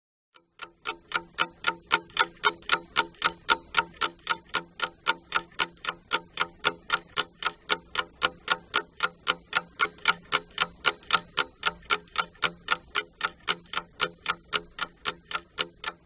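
Ticking-clock sound effect: an even run of sharp ticks, about three a second, starting about half a second in, marking an on-screen countdown timer.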